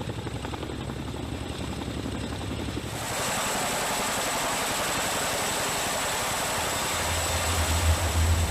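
Helicopter close by with rapid, even rotor-blade chop, giving way about three seconds in to a louder, steady rushing noise. A low steady hum comes in near the end.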